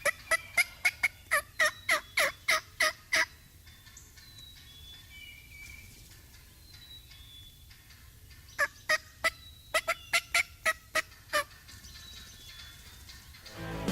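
Wild turkey yelps: two runs of loud, evenly spaced notes, about a dozen at roughly four a second, then a second run of about ten after a pause of some five seconds, with small birds chirping faintly in between.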